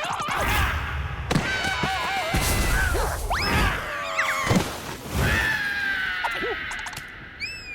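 Animated slapstick cartoon soundtrack: squeaky, sliding vocal squeals and whistle-like pitch glides mixed with several thumps and whacks, over background music.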